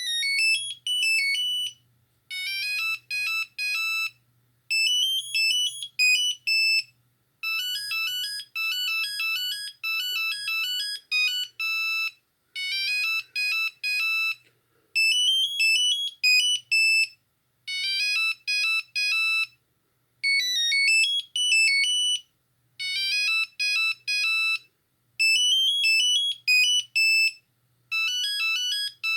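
Nokia 6310i mobile phone playing a monophonic ringtone: a quick, high, beeping melody in short phrases of about two seconds, each followed by a brief pause.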